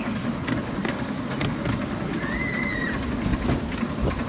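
Ride-on miniature railway train rolling along the track: a steady low running rumble with occasional clicks from the wheels. A brief high tone rises and falls about halfway through.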